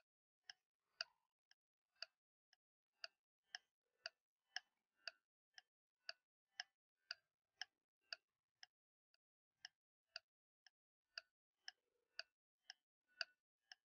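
Clock-style ticking sound effect keeping time for an on-screen stopwatch timer: light, even ticks about two a second, with nothing else heard between them.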